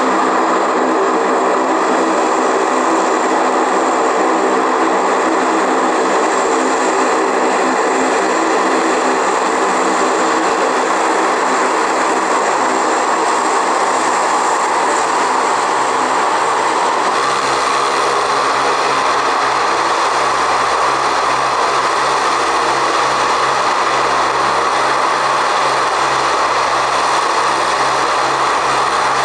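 Aircraft engines running loud and steady, with a hum of several steady tones over a broad rush of noise; about 17 seconds in the hum changes abruptly to a lower pitch.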